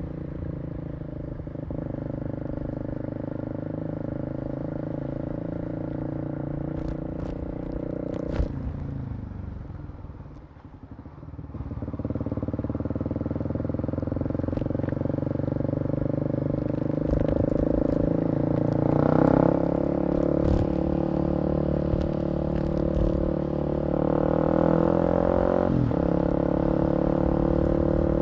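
Kawasaki KLX250 single-cylinder four-stroke engine running under way. About eight seconds in its note falls and quietens for a couple of seconds as the throttle closes, then picks up again and pulls harder through the second half.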